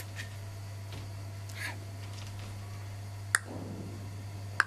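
A few short, sharp clicks over a steady low hum, the two loudest in the second half.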